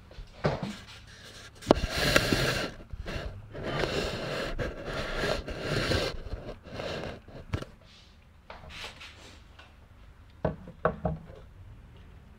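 A sharp knock, then a few seconds of rough scraping and rubbing noise as a green sauce is put onto a plate of chicken orzo, followed by two or three light knocks near the end.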